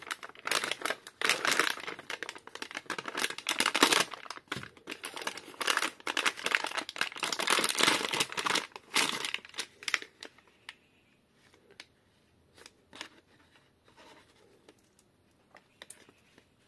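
Plastic packaging crinkling and rustling as it is handled, in dense crackly bursts for about ten seconds, then only a few scattered light clicks and rustles.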